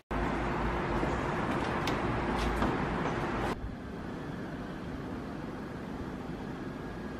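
Steady indoor background rumble with a low hum and a few faint clicks. About three and a half seconds in it cuts off abruptly to quieter, even room tone like a fan or air conditioning, with a faint steady whine near the end.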